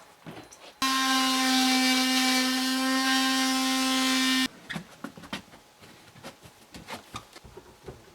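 A handheld power tool running at a steady speed for about three and a half seconds, starting and stopping abruptly, with a steady whine over a hiss; small knocks of handling come before and after it.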